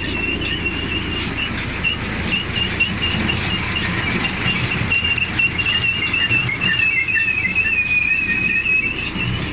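John Deere 582 Premium round baler running on tractor power during a test run: a steady mechanical rumble with a high squeal that wavers in pitch, and scattered clicks.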